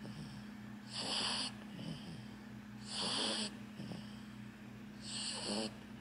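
Small dog breathing audibly as it sleeps, close to the microphone: three breaths about two seconds apart over a steady low hum.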